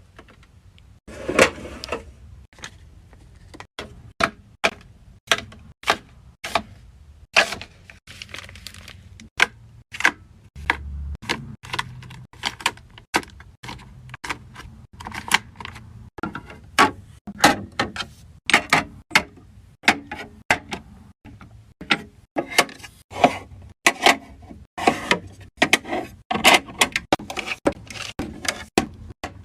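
Skincare bottles, jars and tubes being handled and set down on shelves, a string of light plastic and glass clicks and knocks, about one or two a second, over a low steady hum.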